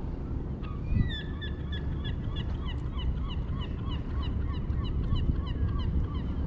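A bird giving a rapid series of short, hooked calls, about three or four a second, starting about a second in, over a steady low rumble of wind on the microphone.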